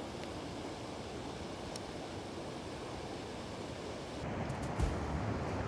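Steady rushing wash of a river's current with wind on the microphone. About four seconds in, a louder low rumble sets in, with a couple of thumps.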